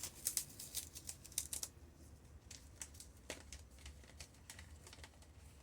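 Light clicks and taps of small hard craft items being handled on a table, most likely aquarium gravel stones and small plastic containers: a quick run of clicks at first, then scattered single clicks, over a faint low hum.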